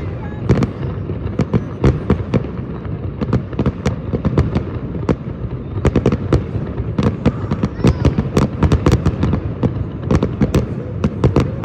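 Many fireworks going off at once: a dense, irregular string of sharp bangs and cracks, several a second, over a steady low din of more distant bursts.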